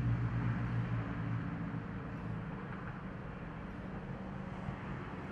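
Low vehicle engine hum that fades out over the first second or two, leaving steady outdoor background noise.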